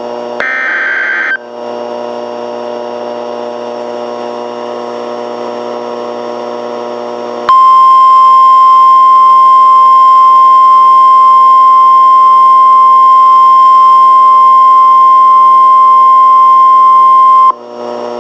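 Emergency Alert System broadcast tones. It opens with a short screechy digital warble of a SAME data header burst, followed by several seconds of steady buzzing hum. Then comes the single steady attention tone of about 1050 Hz, held loud for about ten seconds before it cuts off.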